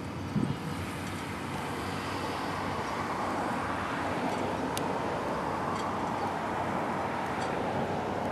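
Steady rushing outdoor background noise, growing slightly fuller a couple of seconds in, with a brief low bump near the start and a few faint ticks.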